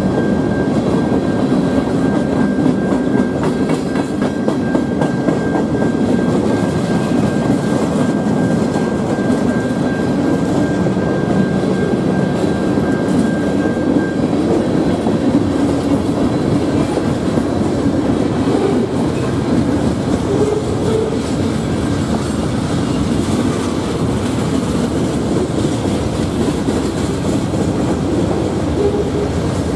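Cars of a passing freight train rolling by: a steady rumble with the clickety-clack of steel wheels over the rail joints.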